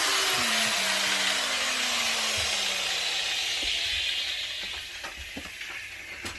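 Power tool's motor winding down after cutting: the hiss fades and a few tones slide slowly lower in pitch. A few light knocks follow near the end.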